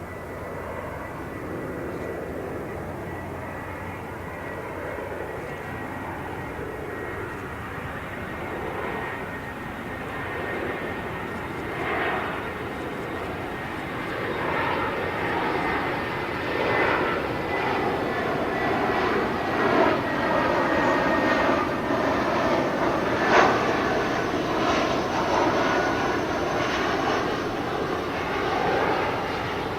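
Jet airliner engines, growing louder over about twenty seconds. A steady high whine runs through the first two-thirds, and a rough, crackling rumble builds in the second half.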